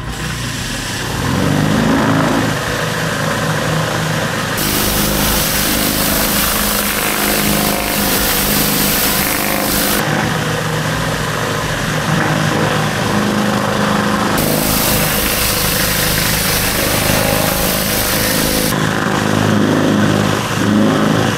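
Engine-driven pressure washer running, its steady engine note under the loud hiss of the high-pressure water jet. The hiss grows and drops abruptly several times.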